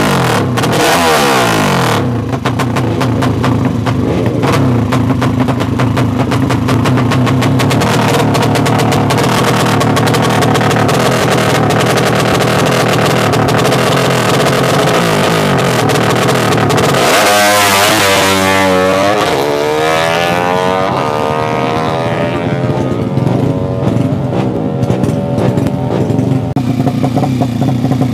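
Drag-racing underbone motorcycle engines running loud and steady, with throttle blips near the start. About 17 seconds in, one bike is revved hard: a loud surge whose pitch climbs and then falls away over a few seconds before the steady running returns.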